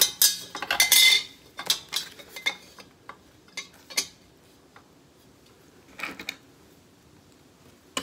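Small hard parts of a ceiling fan's motor housing being handled: scattered light clicks and clinks with a brief rustle about a second in, dying away after about six seconds.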